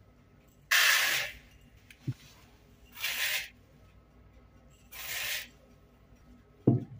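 Three cups of dry basmati rice poured one after another into a plastic bowl: three short rushes of falling grains about two seconds apart. A light knock comes after the first pour, and a brief louder thump near the end.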